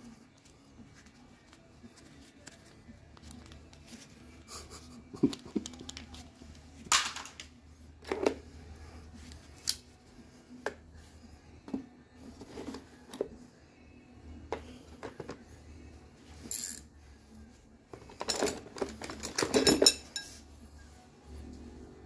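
Metal hand tools clinking and knocking together as they are handled and rummaged through in a packed tool bag. The knocks are scattered at first, with a denser burst of clatter near the end.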